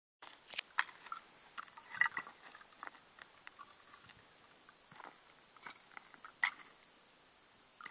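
Irregular soft clicks and crunching noises, a few sharper ones about a second, two seconds and six and a half seconds in; no shot is fired.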